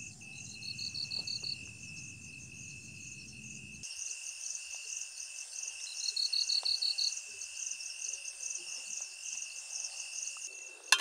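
Night insect chorus, crickets among them: a steady high-pitched trill with rapid pulsed chirping above it. A louder short chirping trill comes about half a second in and again around six seconds. A low rumble underneath cuts off abruptly about four seconds in.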